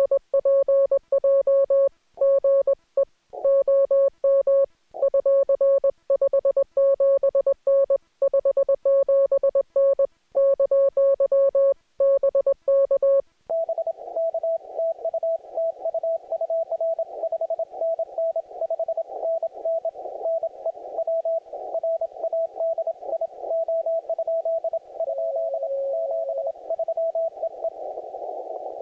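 Morse code (CW) from an amateur radio transceiver. For roughly the first half it is a loud, clean keyed tone with silent gaps between the dots and dashes, the sidetone of the operator's own sending. After that comes narrow-filtered receiver hiss, with a weaker, slightly higher-pitched Morse signal from the other station keyed through it.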